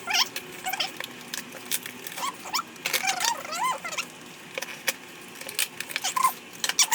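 A pet animal whining and squeaking in short high calls that bend up and down, with light clicks and taps among them.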